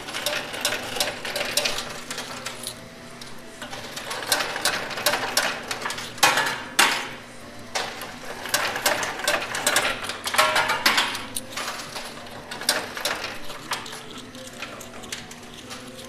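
Coins clinking and rattling in a coin pusher machine as they drop onto the sliding shelves and are shoved along. There is a busy run of metallic clicks and jingles, with louder clusters about six seconds in and again around ten to eleven seconds, over the machine's faint steady hum.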